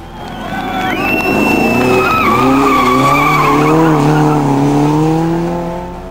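Hillclimb race car engine running hard through a bend, with tyres squealing in a high sliding tone during the first couple of seconds. The engine note wavers with the throttle and rises slightly before fading away near the end.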